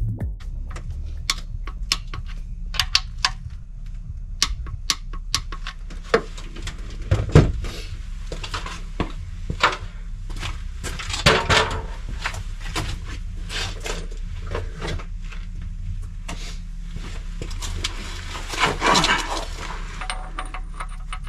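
Irregular metallic clicks and clinks of a hand ratchet and socket on the oil pump bolts of an engine's front, with denser runs of ratchet clicks now and then, over a steady low hum.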